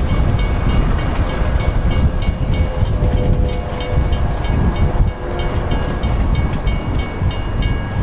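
Recreated pass-by of an Amtrak EMD F40PH passenger train: a heavy rumble with fast, regular clicking of wheels over rail joints. Faint held horn tones sit under it, and the clicking stops near the end.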